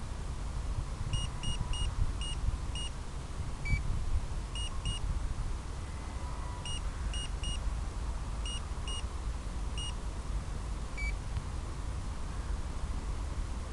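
Short, high electronic beeps in irregular clusters, with two single lower-pitched beeps among them. A steady low rumble and hiss runs underneath.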